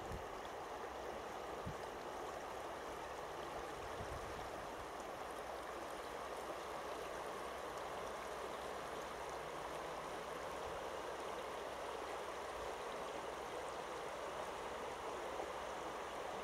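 Wide, shallow river flowing steadily over a gravel bed, an even rush of running water.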